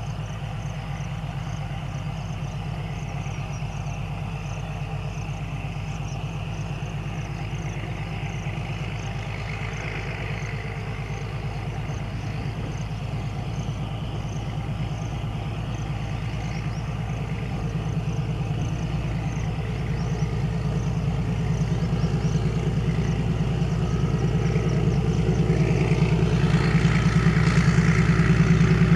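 Indian Railways YDM4 metre-gauge diesel locomotive with its ALCO engine, working under load as it pulls a passenger train away, with heavy exhaust smoke. A steady low, pulsing engine sound grows steadily louder as the locomotive approaches.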